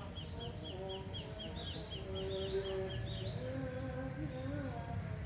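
Faint background chirping of small birds and insects. A short high chirp repeats about five times a second, and a quick series of higher bird notes runs through the middle.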